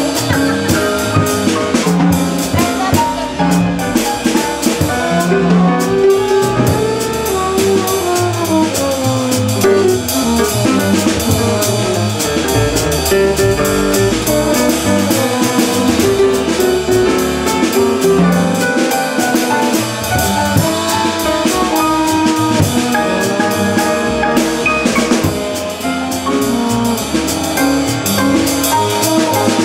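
Live jazz: a trombone plays a melodic line with gliding, slurred notes over piano, double bass and a drum kit with cymbals keeping time.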